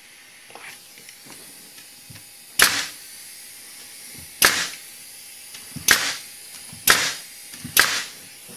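Pneumatic nailer firing five times, about a second apart, driving nails into glued plywood layers; each shot is a sharp bang. A couple of faint knocks come before the first shot.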